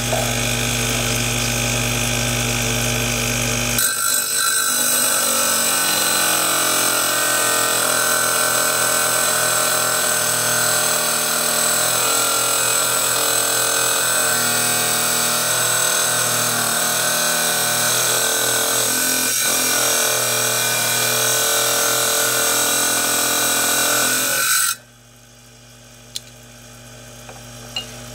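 Lapidary trim saw's diamond blade cutting through a slab of Indonesian petrified palm: a steady, loud grinding whine with a high hiss. Near the end the saw sound cuts off abruptly, leaving a faint hum and a few small clicks.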